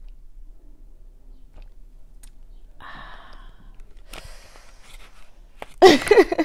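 Packaging handled close to the microphone: short bursts of rustling and crinkling, made on purpose as an ASMR-style break. Just before the end comes a short, louder vocal sound like a sigh.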